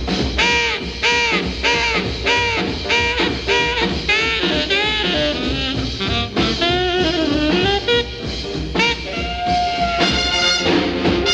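1947 swing jazz band recording: a horn plays short, bent riffs about twice a second, holds one note near the end, and the full horn section comes in for the last second or so.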